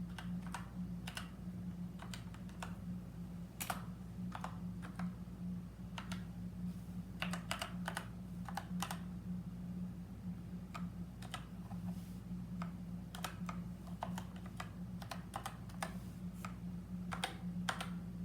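Typing on a mechanical keyboard: irregular clacking keystrokes, some in quick runs, over a steady low hum.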